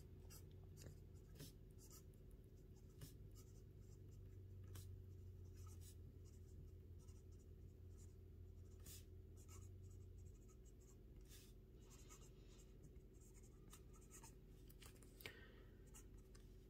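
Platinum 3776 Century fountain pen's 14-karat gold broad nib writing a sentence on Rhodia 80gsm dot-pad paper: faint, soft scratching of pen strokes, with one sharper tick near the end. A very smooth nib with only light feedback, more like a felt-tip marker than a pencil.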